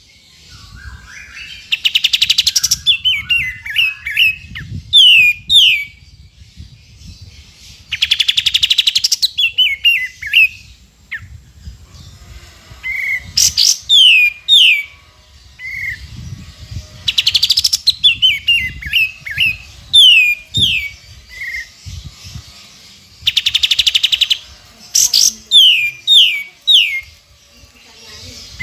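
Olive-winged bulbul (kapas tembak) singing in repeated phrases: a quick buzzy chatter followed by a string of short, clear, falling whistled notes, the phrase coming back every five or six seconds.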